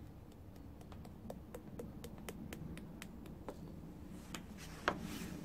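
Spice shaker being tipped and tapped to sprinkle ground spice into a glass bowl: a string of light, irregular clicks, with a slightly louder knock near the end.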